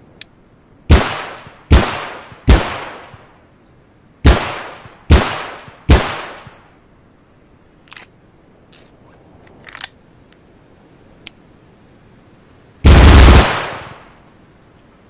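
Glock 18 machine pistol firing 9 mm: six single shots in two sets of three, each with a ringing tail. A few light clicks follow, then a short full-auto burst about 13 seconds in that is the loudest part.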